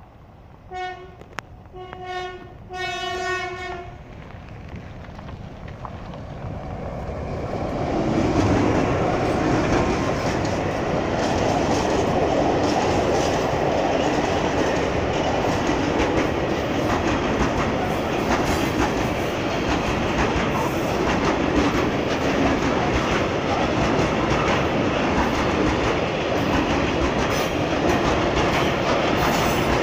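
A class 661 diesel locomotive's horn sounds three times, two short blasts and then a longer one. The freight train then comes up and runs past close by, and a long line of open freight wagons keeps up a loud, steady rumble and clatter over the rails.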